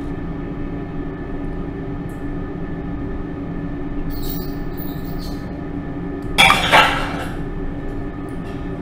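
A steady droning hum of several held tones. About six and a half seconds in it is broken by a loud, harsh screech that peaks twice in quick succession and is the loudest sound here.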